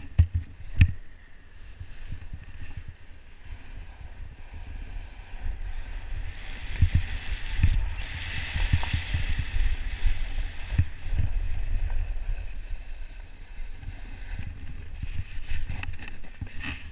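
Wind buffeting the body-mounted camera's microphone with a low rumble, over the hiss and scrape of a rider sliding down steep wind-packed snow, with several thumps. The hiss swells for a few seconds in the middle.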